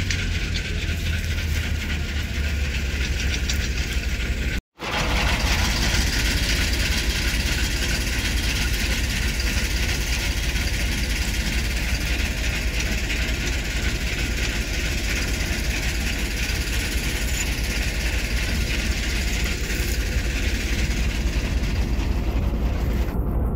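New Holland 3630 tractor's three-cylinder diesel engine idling steadily, with a brief break in the sound about five seconds in.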